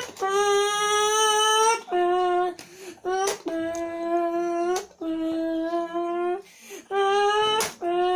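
A boy imitating a Formula 1 car engine with his voice: a series of held buzzing tones, each up to about a second and a half, with short breaths between. The pitch drops lower in the middle and climbs again near the end.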